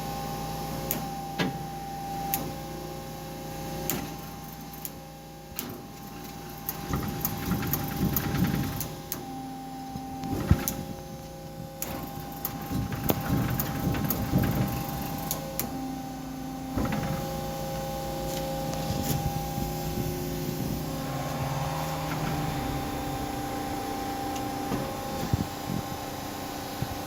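Hyd-Mech H-22A automatic horizontal band saw running, with a steady machine hum and scattered clicks. From about seven to seventeen seconds in, louder mechanical noise rises and changes pitch in steps as parts of the saw move.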